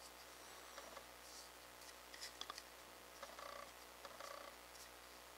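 Faint, short scratches and a few light clicks, about halfway through, from a small brush working grease onto a PVC shaft beside a clear acrylic gear.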